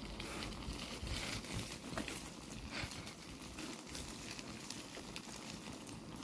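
Bicycle tyres rolling over a wet, broken road surface: a steady rustling hiss with scattered crackles and clicks.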